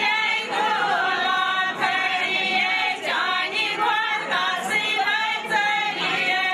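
A group of women singing a traditional Kashmiri mehendiraat wedding song together, several voices overlapping with no instruments.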